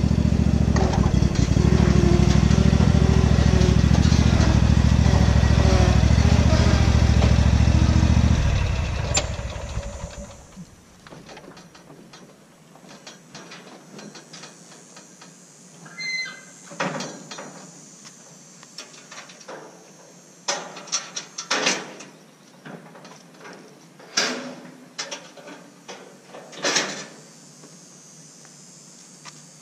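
Zero-turn riding mower's engine running steadily, then shut off about eight seconds in and winding down. After that, scattered clanks and knocks.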